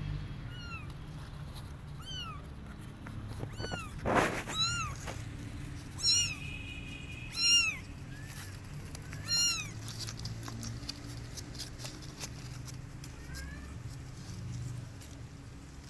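Young kittens mewing over and over in short, high-pitched mews, the loudest bunched together in the middle.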